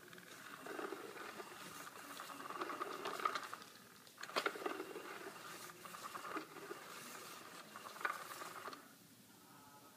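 A cat paws and scratches at the fabric cover of a Cat's Meow toy, a continuous pattering rustle. The toy's small battery motor whirs underneath. Sharp knocks come about four seconds in and again about eight seconds in, and it goes quieter near the end.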